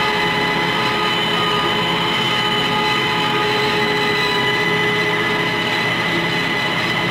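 Antonio Carraro 10400 TTR tractor's diesel engine running steadily under load while driving a BCS Rotex disc mower through grass, heard inside the cab, with several steady whining tones over the engine rumble.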